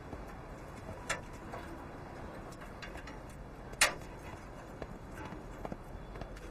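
Scattered light metallic clicks and ticks of parked bicycles being handled, with one sharper click a little past the middle.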